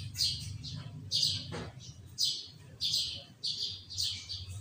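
Sooty-headed bulbul (kutilang) singing: a quick run of short, high, falling whistled notes, many in close pairs, about two to three a second. A steady low hum runs underneath.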